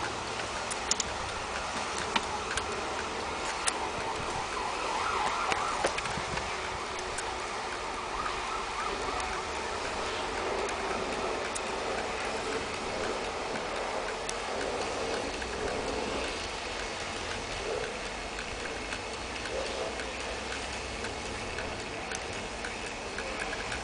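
Vintage wall clock movement ticking steadily as its escapement runs, light regular ticks over a steady background hiss, with a few louder clicks in the first few seconds.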